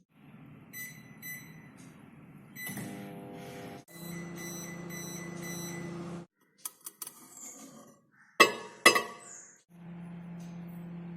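Microwave oven running with a steady low hum that stops and later starts again. In between come a few light clicks and two loud, short, sharp sounds about half a second apart.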